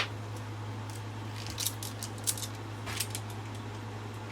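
Light metallic clinks and rattles of a chainsaw guide bar and loop of saw chain being handled: a few scattered ticks over a steady low hum.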